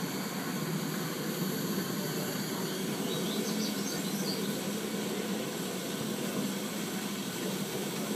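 Steady hiss of a five-inch gauge coal-fired Polly 6 miniature steam locomotive, steam venting from its chimney, with a low steady hum underneath and no exhaust beats.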